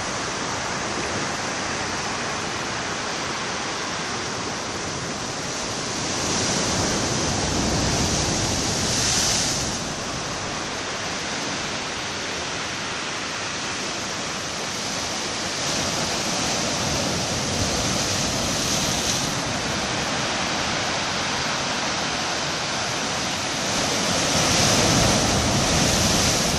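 Ocean swell breaking and washing over concrete breakwater blocks: a continuous rushing of surf that surges louder three times as larger waves come in, the last near the end.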